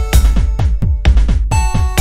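Electronic background music with a steady kick drum at about four beats a second and short synth notes. Near the start the notes drop out for about a second and a half, leaving a swishing noise over the beat, then they come back.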